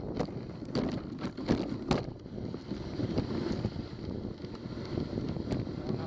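Dog sled moving along a snowy trail: a steady scraping hiss of the runners over snow, with wind on the microphone and a few sharp knocks and clicks as the sled jolts.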